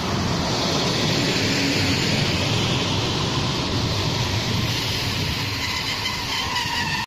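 Train of passenger coaches rolling past close by: a steady, loud rush and rumble of wheels on rails, with a faint ringing tone toward the end. It cuts off suddenly at the end.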